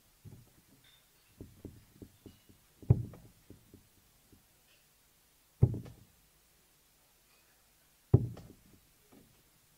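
Three steel-tip darts thudding one after another into a Winmau Blade 6 sisal bristle dartboard, about two and a half seconds apart. Each hit is a sharp, short thud. A few faint small knocks come before the first dart.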